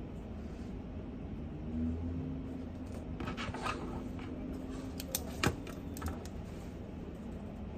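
A few light clicks and taps from handling things at a study desk, a cluster about three seconds in and a couple of sharper ones about five seconds in, over a steady low rumble of room tone.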